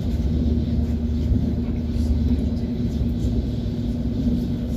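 ES1P Lastochka electric train running along the track: a steady low rumble with an even hum, and faint clicks of the wheels over the rails.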